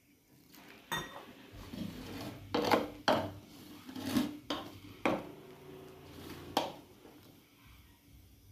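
A hand mixing crumbly flour dough in a steel bowl: rubbing and scraping, with about six sharp knocks and clinks as the hand strikes the metal bowl, some briefly ringing.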